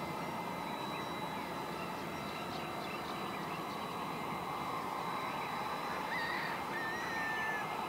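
Airbus A330 jet engines running at taxi power in the distance, a steady hum with a thin high whine. A bird calls briefly about six seconds in.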